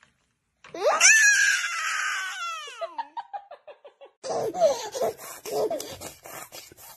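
A baby lets out a long, loud, high squeal that rises, holds, then slides down and breaks into short falling pulses. A few seconds in, another baby giggles in short bursts.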